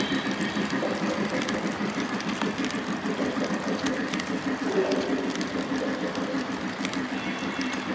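Lionel Scale Polar Express O gauge model train running on three-rail track: a steady rumble of the passenger cars' wheels, with a click now and then.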